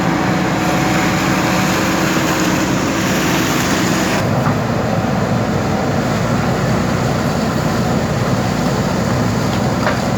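JCB backhoe loader's diesel engine running steadily under load, with a deep, even rumble. A faint steady tone in it drops away about four seconds in.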